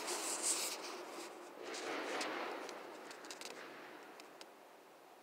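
Rustling and scraping handling noise, with sharp clicks in the first second and a swell about two seconds in. It fades after about four seconds to a quiet outdoor background.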